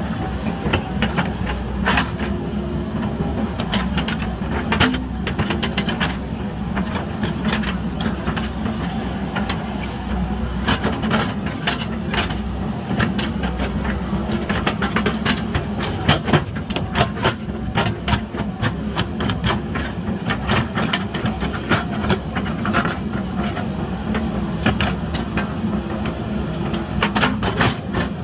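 JCB backhoe loader's diesel engine running steadily under load, with frequent irregular clanks and knocks of the steel bucket working broken concrete and earth.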